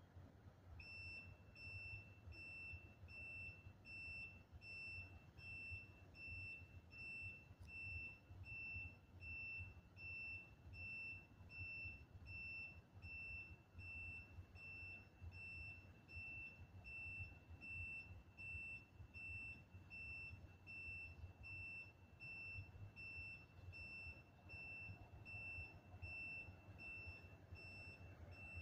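Faint electronic alarm beeping: a single high tone repeating at an even rhythm, a little under twice a second, starting about a second in, over a low steady hum.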